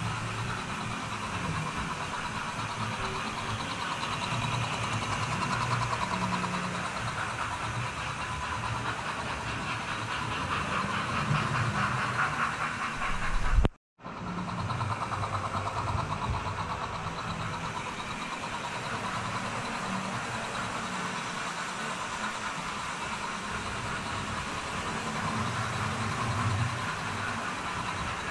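Model railway trains running on the layout: a steady whirr of small electric locomotive motors with wheels rattling over the rails. The sound cuts out for a moment about halfway through.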